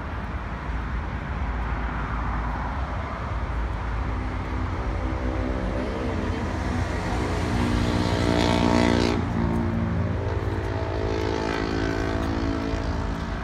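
A motor vehicle's engine running, its pitched hum swelling to a peak about nine seconds in and then dropping back, over a steady low rumble.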